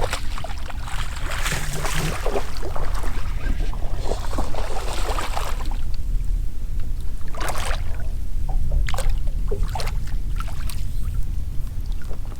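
Fishing boat on the water with a steady low rumble, broken by a long stretch of hissing, splashy noise and then several short sharp knocks.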